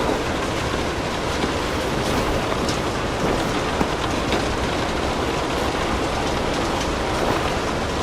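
Steady rain with a crackling wood fire, a few sharp pops standing out over the even hiss.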